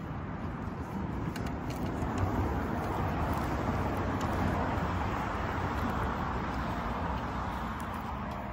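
A car passing on the street, its tyre and engine noise swelling to a peak around the middle and then fading.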